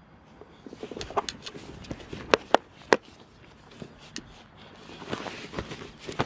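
Hurried footsteps across a grass field with rustling handling noise, and three sharp knocks about two to three seconds in.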